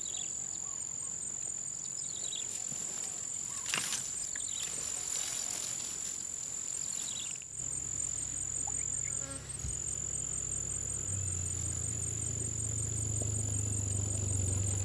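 Steady high-pitched insect drone, with a few faint chirps over it. About halfway through, the low hum of a motor vehicle's engine comes in and grows louder near the end.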